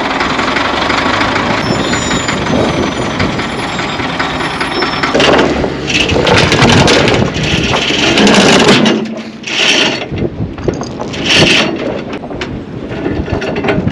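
Heavy equipment engine running hard under load while lifting a heavy object, with mechanical clanks and scrapes several seconds in.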